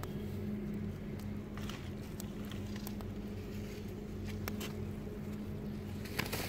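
A steady low motor hum, with scattered sharp clicks and crackles from a straw fire burning under a cooking pot; a couple of louder clicks come near the end.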